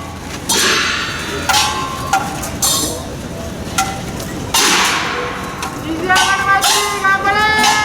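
Group of men shouting calls, with several loud noisy bursts in the first half and long drawn-out shouts near the end that fall in pitch.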